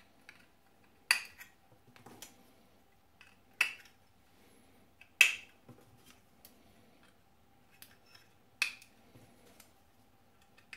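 Sharp clicks as Raspberry Pi Zero boards are pushed onto the ClusterHAT's header connectors: four loud clicks a second or more apart, with smaller ticks of the boards being handled between them.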